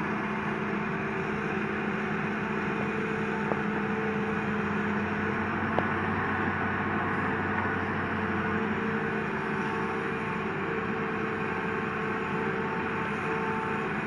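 Hitachi Zaxis 200 hydraulic excavator's diesel engine running steadily as the machine swings and works its boom and bucket, with two brief clicks a few seconds in.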